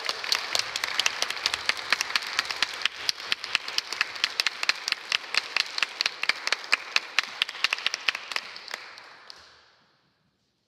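Audience applauding, dying away and stopping about nine and a half seconds in.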